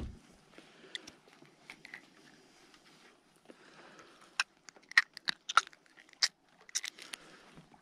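Sharp little clicks and crackles of handling as a freshly caught chub is held and the hook is worked out of its mouth. The clicks are scattered at first and come thicker and louder from about four to seven seconds in.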